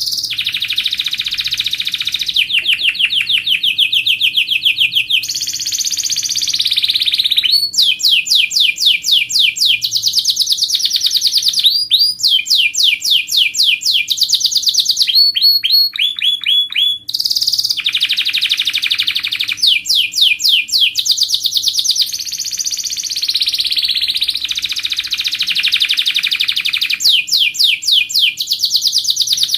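Canary singing a long, near-continuous song of rapid trills: each phrase is a fast run of repeated high notes, and a new phrase follows every second or two with barely a break. It is a canary mastering (tutor) song, the kind played to train young canaries for singing contests.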